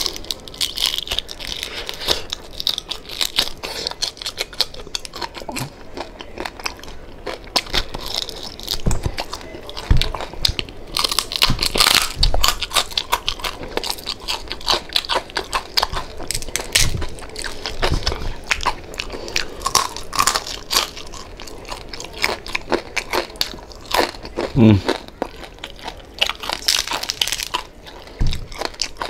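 A person biting and chewing crispy pata, the deep-fried pork knuckle skin crunching and crackling close to the microphone in many quick, irregular bites.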